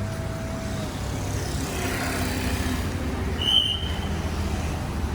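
Road traffic running steadily with a low rumble, with a short high-pitched squeal about three and a half seconds in.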